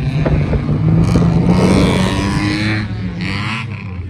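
Off-road vehicle engine running steadily at low revs, getting louder in the middle with a rushing noise.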